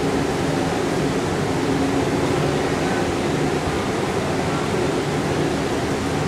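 Steady, even background noise of an indoor swimming-pool hall: a constant hiss with a low hum underneath, like ventilation or water circulation.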